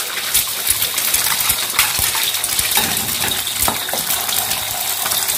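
Eggs frying in hot oil in a wok, a loud steady sizzle, with a metal wok spatula scraping and clinking against the wok as it pushes the eggs around.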